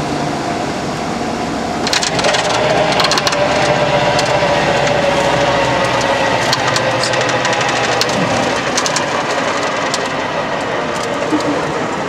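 Light aircraft's engine and propeller, heard loud and steady from inside the cabin as the plane runs along a sand beach. From about two seconds in, rapid rattles and clicks join the drone.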